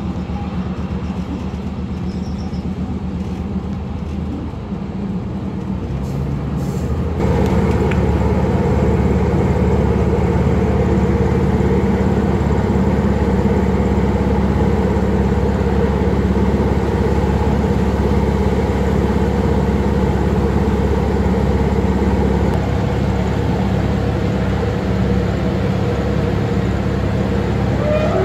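Diesel engines of an MR diesel multiple unit running steadily. About seven seconds in, the engine note steps up sharply and gets louder, then holds at that higher level.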